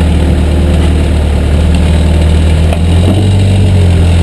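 Backhoe's diesel engine running steadily and loud, with a faint knock about two and a half seconds in and the engine note coming up slightly just after.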